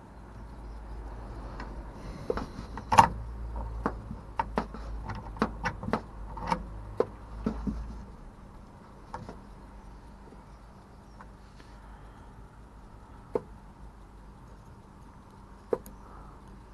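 A run of sharp metallic clicks and taps, thickest and loudest in the first half, then two lone clicks near the end. It is a car lock pick being inserted and worked in a Vauxhall car door lock cylinder.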